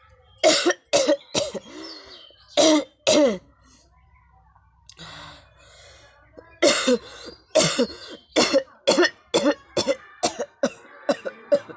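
A person coughing on purpose in repeated short bursts, with a pause of about three seconds after the first few. Then comes a fast run of coughs that follow closer and closer together.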